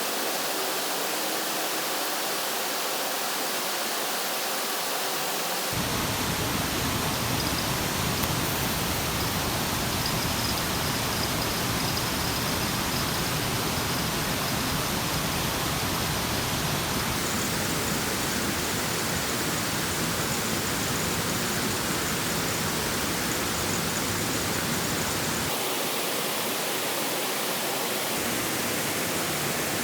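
Steady rushing noise of water, with a deeper rumble joining in from about six seconds in and dropping away again near the end.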